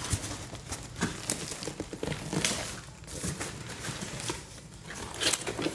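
Cardboard box and packaging being handled, rustling, with scattered light knocks and scrapes from plastic breaker enclosures shifting inside the box.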